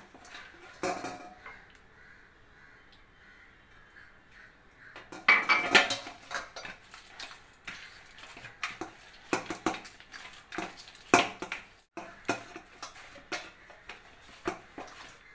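Hands kneading soft wheat-flour dough in a stainless steel bowl: irregular knocks and scrapes of the metal bowl shifting on the stovetop as the dough is pressed and pushed against it. It is quiet for the first few seconds, with a louder burst about five seconds in, then short knocks every half second or so.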